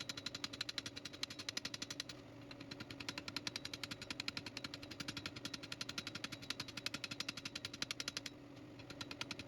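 Rapid, evenly spaced hammer blows on a hollow steel tube, several a second, forging the flange of a growth node into a flat shelf. The hammering breaks off briefly about two seconds in and again near the end, over a low steady hum.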